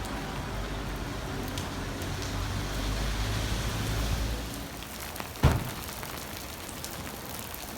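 Steady rain falling on surfaces, with a low rumble under it that fades out about halfway through. A single sharp knock about two-thirds of the way in is the loudest sound.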